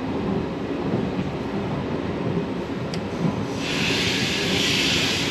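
Passenger train coaches rolling slowly past a station platform, heard from an open coach doorway: a steady low rumble. About three and a half seconds in, a steady high hiss joins it as the train slows.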